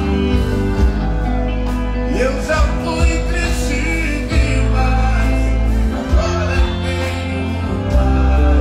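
Live gospel music: a man singing at an electronic keyboard, backed by a band with a heavy, pulsing bass.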